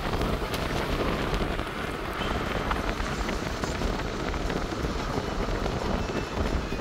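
Steady road and wind noise of a moving car, heard from inside the car.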